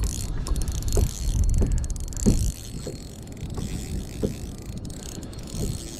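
Akuma RCX 3000 spinning reel being wound in against a hooked fish, faint ticks from the reel repeating about every second, under a low wind rumble on the microphone that is loudest in the first half.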